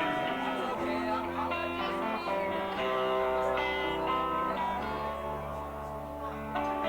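Live rock band playing a slow instrumental intro: picked guitar notes over long held chords and a steady bass.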